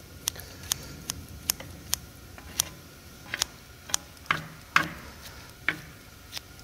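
Metal cooking utensils clicking and scraping against a black griddle pan as pork belly and kimchi are stirred and chopped: a string of sharp, irregular clicks, about two a second, over a low steady background.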